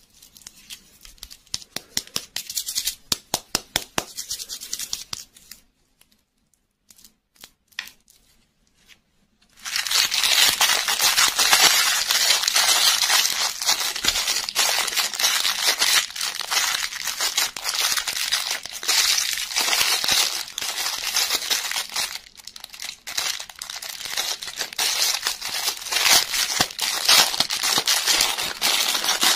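Clear plastic wrapping crinkling and tearing as hands open it: quick crackles for the first few seconds, a short lull with a few ticks, then steady crinkling of a cellophane bag of small toy cars from about ten seconds in.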